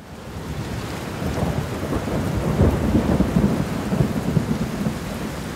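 Steady rain with a roll of thunder that builds about a second in, rumbles loudest in the middle and fades back into the rain near the end.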